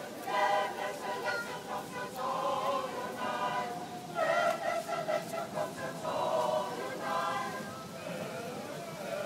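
Mixed amateur choir of men and women singing unaccompanied, in short phrases with brief breaks between them.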